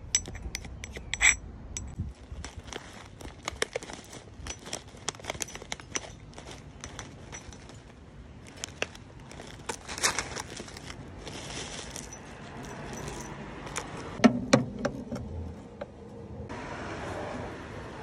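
Ceramic reptile food dish and other hard cage items being handled: a run of small clinks, taps and scrapes, with a louder cluster of knocks about fourteen seconds in. A steady hiss starts near the end.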